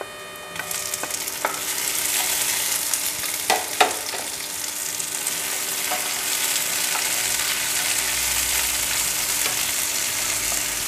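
Chopped tomatoes tipped into onions and whole spices frying in hot oil in a nonstick frying pan: the sizzle jumps up about half a second in and carries on steadily. A few sharp knocks come around the middle as the pan is stirred.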